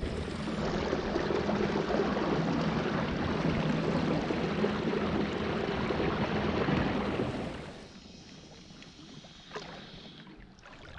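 Steady rush of moving river water, dropping to a softer wash after about eight seconds, with a single knock near the end.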